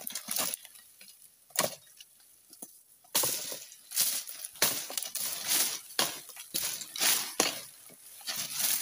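Long-handled pruning chisel (dodos) chopping through oil palm frond bases: repeated crunching strikes of steel into fibrous wood, coming faster from about three seconds in.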